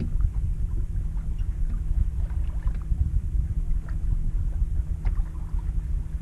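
Wind rumbling on the microphone aboard a sailboat under sail, with small scattered splashes of water along the hull.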